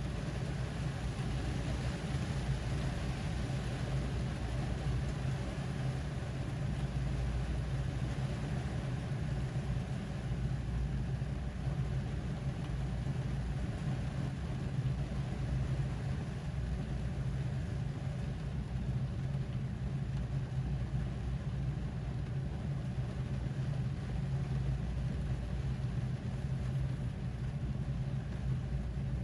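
Rain on a car, heard from inside the cabin: an even hiss of rain over a steady low rumble. The hiss eases a little as it goes on.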